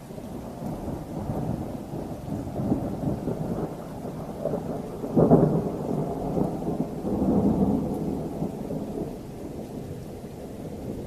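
Thunder rolling in a long, uneven rumble that peaks sharply about five seconds in, swells again, then dies away.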